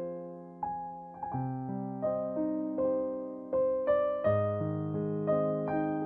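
Piano music: single notes and chords struck about two to three times a second, each ringing and fading.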